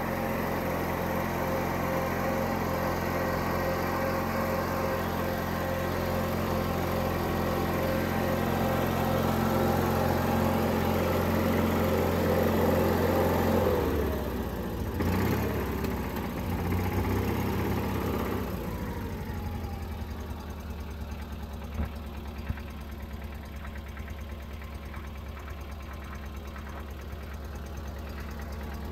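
Wheel Horse garden tractor's air-cooled engine running steadily at a fast idle, then throttled down about halfway through, its pitch falling and wavering before it settles into a lower, quieter idle.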